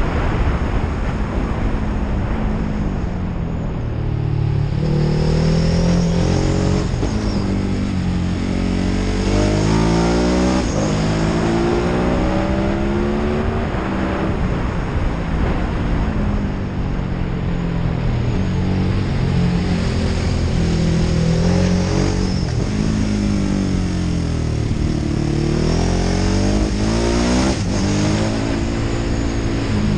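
Ducati Hypermotard's L-twin engine under way, revving up and easing off again and again, its pitch rising and falling with each pull.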